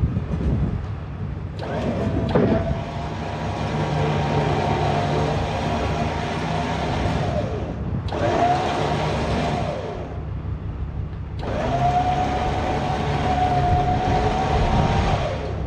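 Electric trailer winch running in three pulls, stopping twice between them: a steady motor whine over gear noise that starts and stops abruptly, hauling in its cable.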